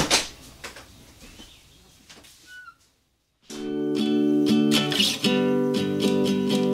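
Background music: a sharp hit at the start fades away into a moment of silence. Then an acoustic guitar song starts with steady strumming about three and a half seconds in.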